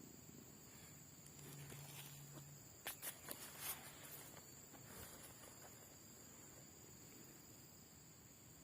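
Faint, steady high-pitched drone of crickets, with a few brief knocks about three seconds in.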